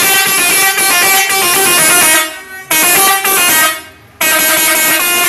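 Telolet horn, a set of electric air-horn trumpets driven by a melody module, playing a multi-note tune that steps from note to note. It sounds in three long stretches with short breaks about two and four seconds in.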